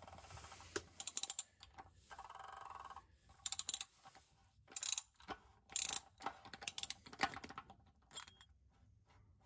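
A 3/8-inch ratchet clicking in quick runs as it turns a cup-type filter wrench to unscrew a Toyota's oil filter housing, with separate sharper clicks between the strokes.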